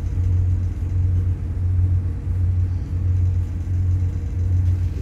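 Low, steady rumble of a diesel commuter railcar heard from inside the passenger cabin as the train moves slowly.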